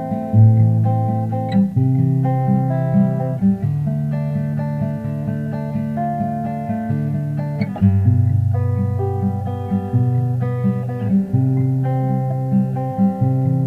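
Background music: a plucked acoustic guitar playing a steady picked pattern over held bass notes.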